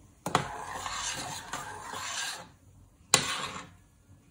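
Metal spoon scraping and rubbing around the bottom of a stainless steel pot as heating milk is stirred to keep it from sticking, with a sharp clink of spoon on pot near the start and another about three seconds in.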